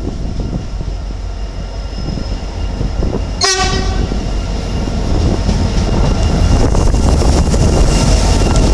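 Train horn sounding one short blast about three and a half seconds in, given as a driver's greeting, while the approaching train's rumble grows steadily louder.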